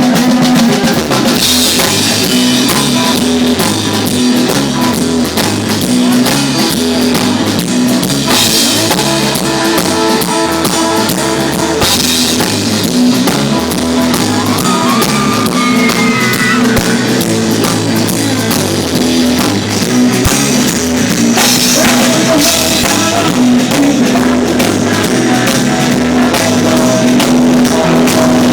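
Amplified rock band playing: drum kit keeping a steady beat under electric guitar, with a short bending guitar line about halfway through.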